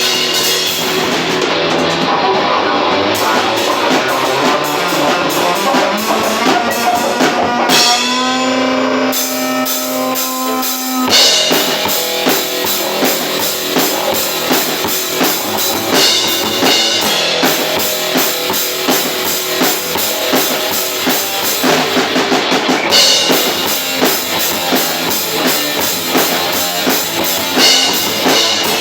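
Metal band rehearsing live: electric guitars and drum kit playing an instrumental passage. About a third of the way in the cymbals drop out for a few seconds under a held note, then the full band comes back in with a driving, even drum beat.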